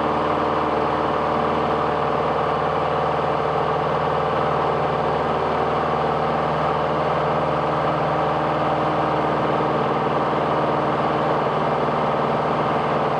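Steady engine drone with several fixed tones, unchanging in pitch and level throughout.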